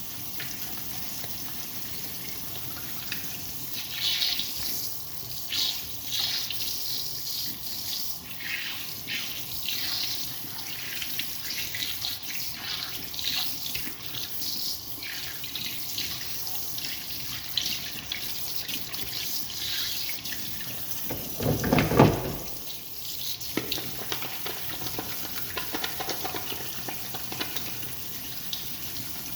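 Liquid trickling and splashing into toilet-bowl water in irregular spurts, with one louder, lower sound lasting about a second and a half about three quarters of the way through.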